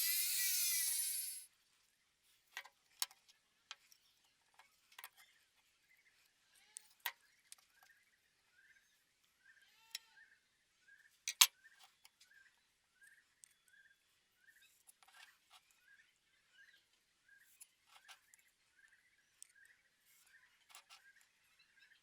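A power tool runs with a wavering pitch and stops about a second and a half in. Then come scattered light clicks and taps, one sharper knock near the middle, and a faint short chirp repeating about twice a second through the second half.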